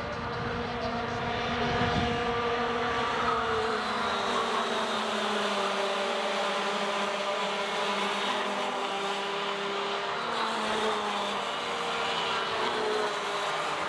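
Pack of small two-stroke racing kart engines running together at speed, several engine notes heard at once, their pitches sliding up and down as the karts brake and accelerate through the corners.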